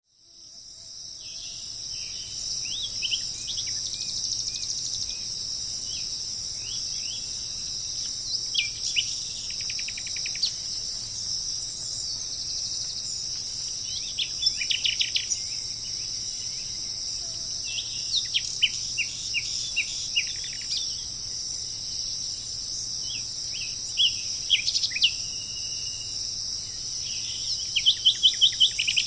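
Songbirds singing in short phrases of rapid, sliding notes every few seconds over a steady, high-pitched insect chorus. The sound fades in over the first couple of seconds, and a fast run of repeated notes comes near the end.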